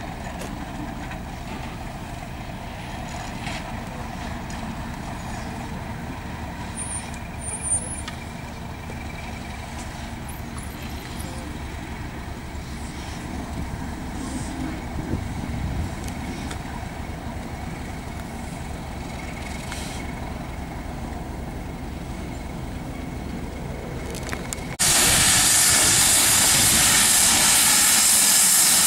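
BR Class 31 diesel locomotive's English Electric V12 engine running with a steady low rumble as it moves slowly with a steam locomotive coupled behind. About 25 seconds in, the sound changes abruptly to a loud, steady hiss of steam from GWR Manor-class steam locomotive 7820.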